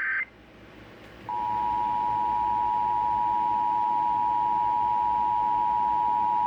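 Emergency Alert System alert: the tail of a SAME digital header burst cuts off right at the start. After about a second of quiet, the steady two-tone EAS attention signal starts and holds, marking a severe thunderstorm warning.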